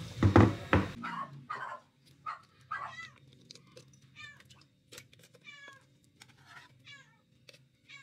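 A heavy glass mixing bowl knocks down onto a wooden table. It is followed by a run of short squelches and plops as thick, chilled sweetened all-purpose cream slides out of a can into the bowl.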